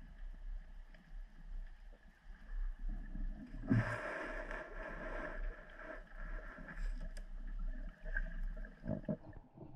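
Underwater sound heard through a waterproof camera housing: a faint steady hum and murmur, with a burst of hissing noise lasting about two seconds, starting about four seconds in, and a few faint knocks.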